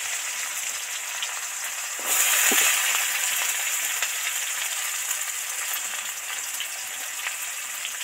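Onion pieces sizzling in hot oil in a kadai (wok). The sizzle flares louder about two seconds in, then slowly eases off.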